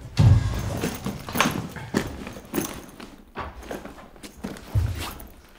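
A string of irregular knocks and thuds, about six, from things being handled and knocked against a school desk while rummaging through it and a bag. The loudest knock comes just after the start.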